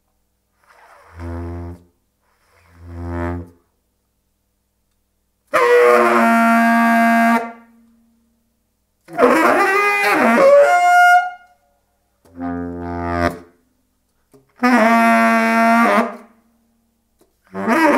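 Saxophones in free improvisation, playing short separate phrases broken by silences: quiet low swelling notes in the baritone's range, loud held tones that cut off abruptly, and bending, squealing phrases that slide up and down in pitch.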